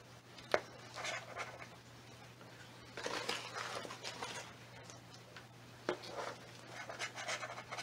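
Faint rustling and scraping of potting mix as a plastic scoop digs into a plastic bowl and pours soil into a plant pot, with two light knocks of the scoop.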